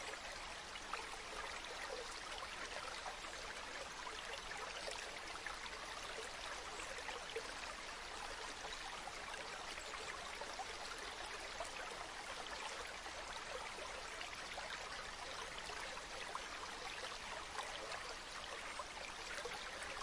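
Stream water trickling and splashing over rocks in a small cascade, steady throughout with fine flickers of splashing.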